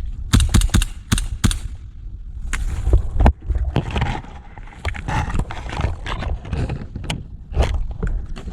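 Scattered sharp snaps and knocks on an airsoft field, some in quick clusters, over a steady low rumble.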